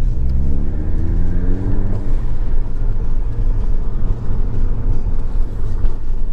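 Ford Focus ST accelerating, its engine note rising in pitch over about the first two seconds, then a steady low rumble as the car keeps driving.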